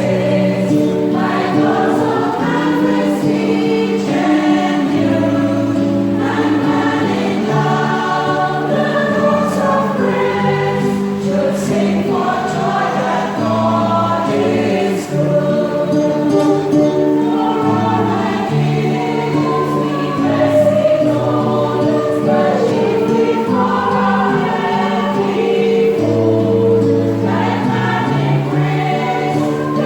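Choir singing a hymn in parts, holding sustained chords that shift from note to note without pause.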